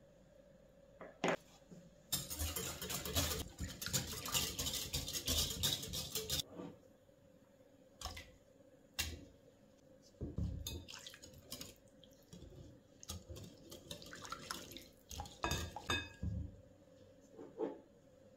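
Wire whisk beating liquid in a glass mixing bowl, its wires rattling fast against the glass for about four seconds, then several shorter bursts of whisking and clinks against the bowl.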